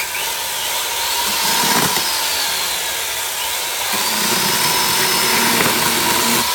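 A 110 V electric chainsaw switched on right at the start and running steadily: a loud, continuous motor whine with a steady high tone.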